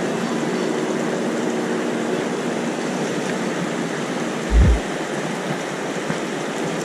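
Stream water rushing steadily, with one brief low thump about four and a half seconds in.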